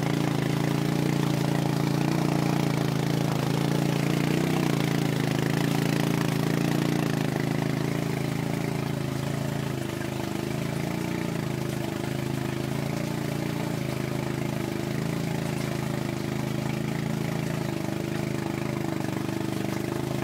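ATV engine running steadily under load as it tows another vehicle on a strap through shallow water, a steady drone that eases off a little about halfway through.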